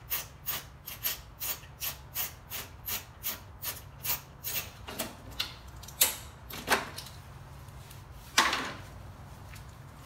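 Ratchet with a 5/16 socket clicking in quick even strokes, about four to five clicks a second, as the bolt holding the mower's cover plate is backed out. Then a few knocks and, about eight seconds in, a louder scrape as the cover plate is pulled away.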